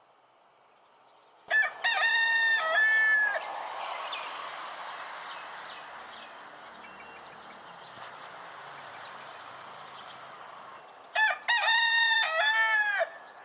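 Rooster crowing twice, one long cock-a-doodle-doo about a second and a half in and another near the end, with a faint steady hiss between the crows.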